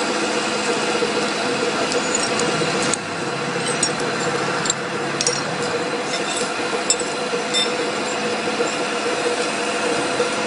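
Lathe running, a steady machine hum with scattered short metallic ticks; the level drops a little about three seconds in.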